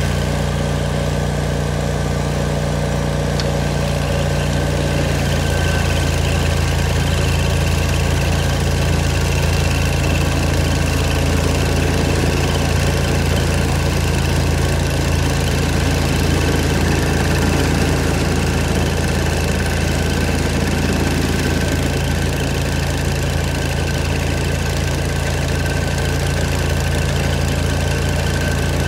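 Engine of an old Vermeer stump grinder running steadily at a constant speed.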